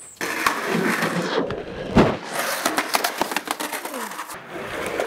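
Skateboard wheels rolling on the concrete of an empty swimming pool, with clattering clicks and knocks and one loud hit about two seconds in.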